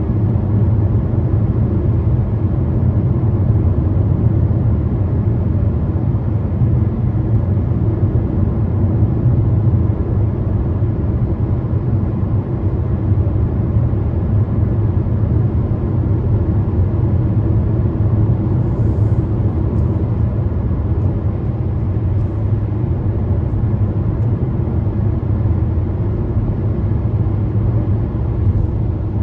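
Steady low rumble of tyre and road noise from a car cruising at motorway speed, heard inside the car's cabin.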